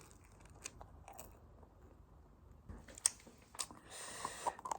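A person biting into and chewing a hard-crusted salt bread roll: a few faint crunches and clicks, with a brief hiss about four seconds in.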